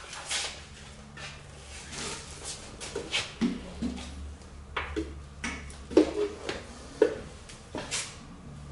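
Hand tools and small parts being handled on a workshop floor mat: scattered clicks, clinks and rustling, with a few short pitched sounds in the second half over a steady low hum.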